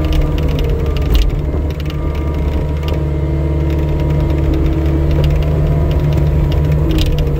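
Skid steer working under load as it pushes a plow full of damp snow: a steady low engine drone with whining drive tones over it, and a single knock about a second in.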